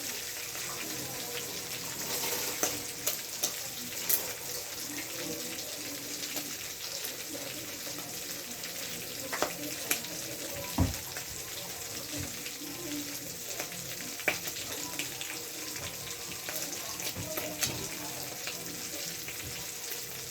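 Tap water running steadily into a sink, with scattered clicks and knocks of items being handled in it; one sharper knock about eleven seconds in is the loudest.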